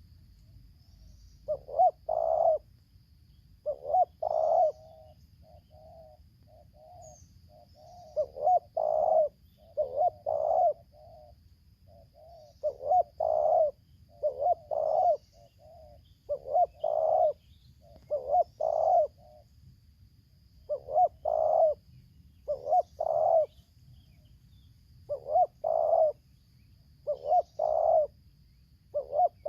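Spotted doves (tekukur) cooing: loud two- and three-note coos repeated every couple of seconds, with softer short notes in between.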